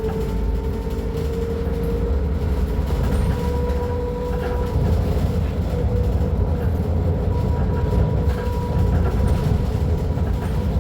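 Scania K310UB bus engine running, a steady low rumble with a thin high whine held over it, a little louder about halfway through.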